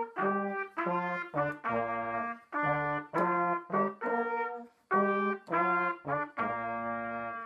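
Brass instrument playing a simple tune of separate held notes with short breaks between them, stopping abruptly near the end.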